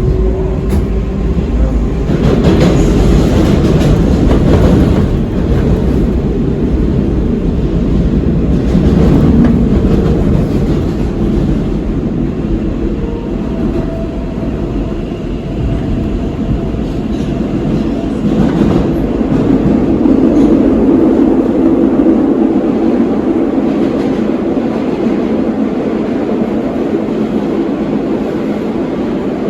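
Inside a New York subway car of the 7 train (R142A/R188 stock) running through the tunnel: a steady loud rumble of wheels on rails with clickety-clack over the rail joints, swelling and easing in loudness.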